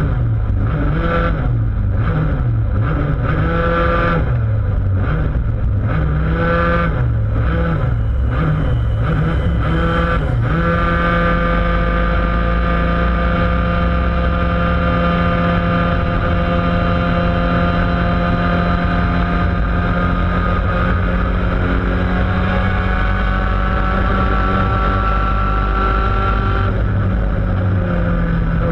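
Laydown enduro racing kart's engine heard from on board at speed. For about the first ten seconds its pitch rises and falls roughly once a second as the throttle is worked. It then holds a steady high pitch that climbs slowly.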